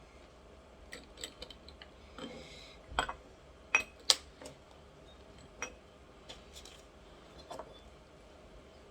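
Scattered clicks and light knocks of a glass jar being handled and its lid opened, with a short soft rustle a couple of seconds in; the sharpest clicks come about four seconds in.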